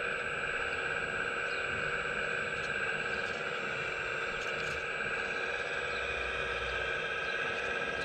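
Steady electric whine of a 1:15-scale RC Hitachi ZX135US excavator's hydraulic pump, running at a constant pitch while the machine digs and dumps soil.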